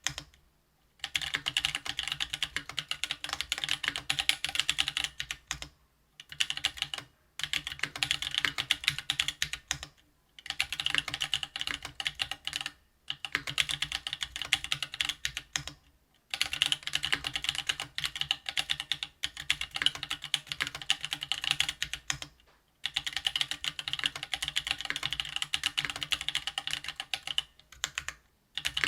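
Fast typing on a RAMA Thermal custom mechanical keyboard fitted with stock Ethereal Panda tactile 68 g switches: dense runs of keystroke clacks, broken by short pauses every few seconds.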